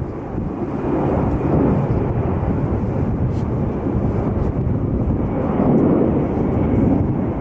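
Jet airliner engines, a loud, steady, low rumble.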